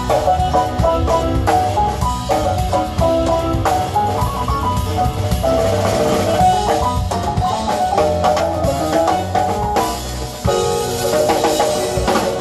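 Live synthesizer keyboard playing a quick melody over a drum kit. About ten seconds in, the music drops briefly, then comes back with held keyboard notes.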